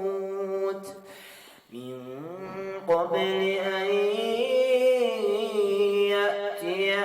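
A male voice chanting Quranic recitation in melodic tajwid style, drawing out long vowels. There is a short pause for breath about a second and a half in, then the voice rises into a long held note that swells and falls.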